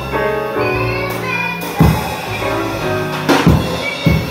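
Live small-group jazz: a woman singing into a microphone backed by grand piano, upright bass and drum kit. Sharp drum hits come about two seconds in and again several times near the end.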